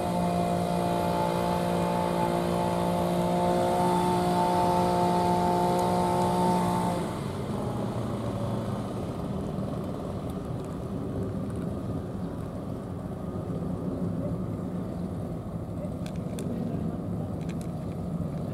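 An engine running steadily with an even hum, which cuts out about seven seconds in, leaving a steady background hiss with a few faint clicks near the end.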